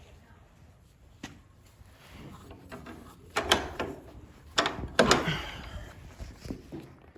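A few sharp knocks and clatters, the loudest about three and a half and five seconds in, with a short ring after each.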